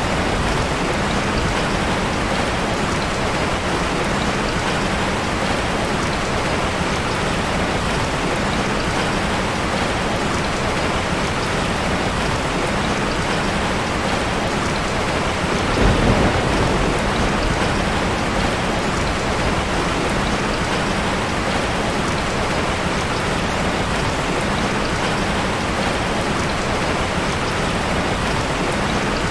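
Heavy rain falling steadily, with one low thunder rumble about halfway through.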